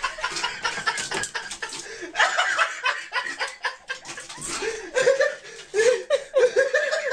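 A person laughing in repeated bursts of chuckles, which grow stronger in the last couple of seconds.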